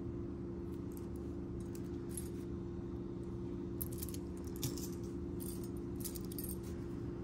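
Small metal cufflinks and tie bars clicking and clinking as they are handled and set down on a cloth, with a cluster of clicks around the middle and another near the end. A steady low hum runs underneath.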